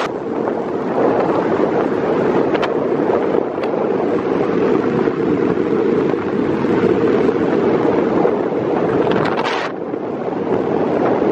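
Steady rush of tyre and wind noise from a car driving through a road tunnel, heard from inside the car.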